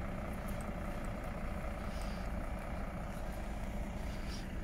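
Scania CityWide natural-gas articulated city bus idling with a steady, even hum.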